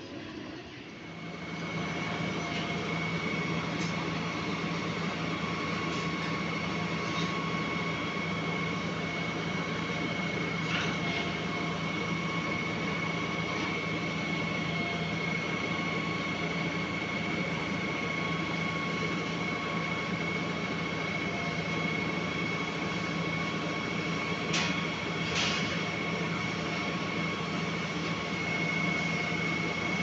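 Truck-mounted concrete pump's engine and hydraulics running as the boom is raised and unfolded: a steady drone with a high whine, coming up to a steady run about a second in. A few brief squeaks or clicks are heard midway and near the end.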